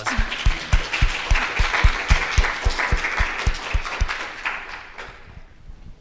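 Audience applauding, a dense clapping that fades out about five seconds in, with dull claps close to the microphone keeping a steady beat of about three or four a second.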